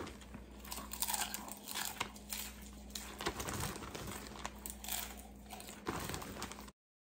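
A person chewing mouthfuls of popcorn with crunching, and the plastic popcorn bag crinkling as a hand digs into it. The sound cuts off suddenly near the end.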